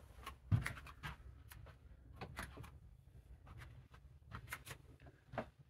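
Quiet, irregular footsteps and small knocks and rustles as someone walks through a room, the loudest knock about half a second in.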